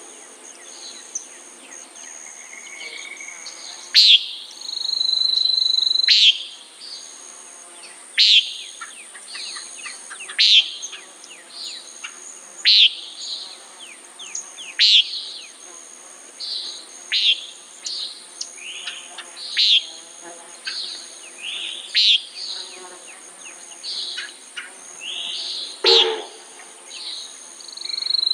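Common nighthawk calling: a short, sharp call repeated about every two seconds, with fainter bird chirps and a steady high insect drone behind.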